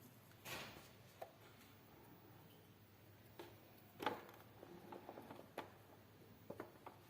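Faint massage hand sounds: a soft swish of hands on skin about half a second in, then scattered light taps and clicks, the sharpest about four seconds in.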